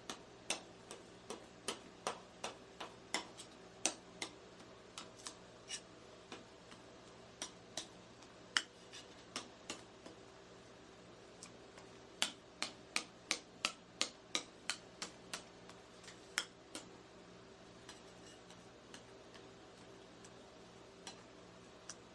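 Metal spatulas tapping and chopping on the steel plate of a rolled-ice-cream cold plate: sharp clicks in quick irregular runs with pauses between, over a faint steady low hum.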